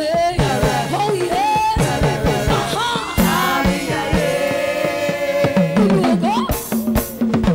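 Gospel worship music: voices singing over an evenly pulsing drum beat, with the drums and cymbals coming up louder near the end.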